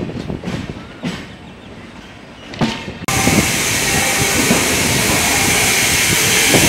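Express train running on the track, heard from on board: its wheels knock over rail joints at uneven intervals. About three seconds in, the sound switches abruptly to a loud, steady rushing hiss, with the wheel knocks still heard beneath it.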